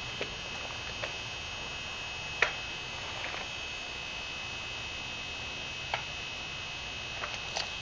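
A few light, scattered clicks and knocks of objects being handled, the sharpest about two and a half seconds in and several close together near the end, over a steady high-pitched electrical hum.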